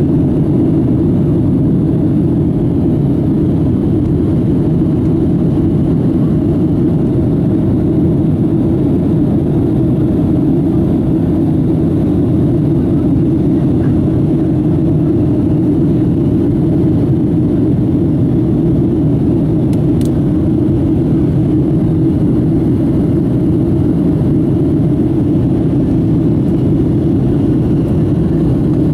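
Boeing 757-200 jet engines heard from inside the passenger cabin during the climb after takeoff: a loud, steady, low rumble that holds even throughout.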